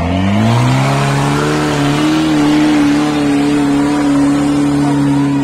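Modified 4x4 Jeep's engine revving hard under full load as it climbs a steep dirt slope. The revs rise over the first second, hold high and steady, then start to drop near the end.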